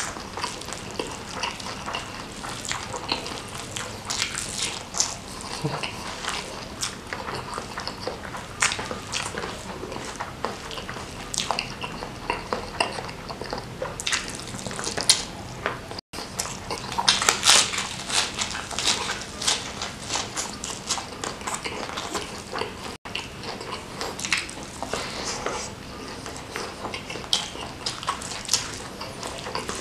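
Close-miked eating: chewing and crunching of crispy food, mixed with small clicks of cutlery on a plate, with a denser spell of crunching a little past halfway.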